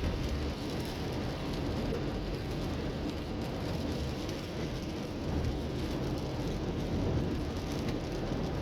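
Rain falling on a moving car, a steady hiss with faint drop ticks over a continuous low rumble of tyres and engine.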